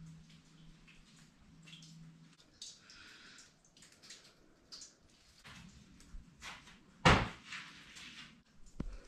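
Scattered faint footsteps and scuffs on a rocky cave floor, with a faint steady hum in the first two seconds and one louder knock about seven seconds in.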